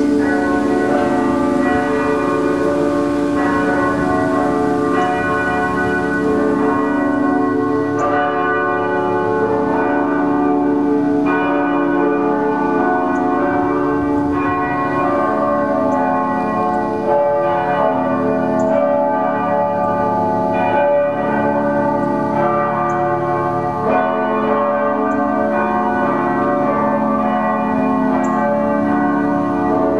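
Church bells ringing: fresh strokes every second or few over a dense wash of long, overlapping ringing tones.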